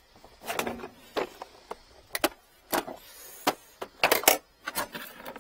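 Plumbing equipment and a hand cart being handled and moved, giving about a dozen sharp, irregular clanks and knocks.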